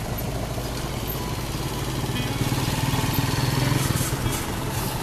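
Motorcycle engine of a sidecar tricycle running at low speed, getting a little louder about halfway through.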